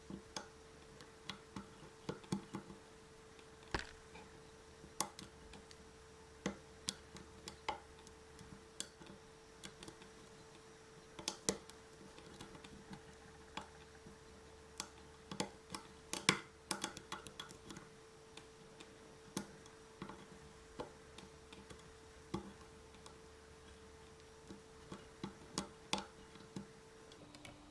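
Lock pick and tension wrench working the pins of a Yale pin tumbler cylinder: small sharp clicks and taps at irregular intervals, bunching into quick runs now and then. A faint steady hum runs beneath and stops near the end.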